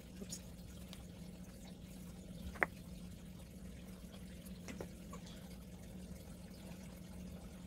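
Quiet handling of watercolour painting supplies: a few light clicks, the sharpest about two and a half seconds in, over a steady low hum.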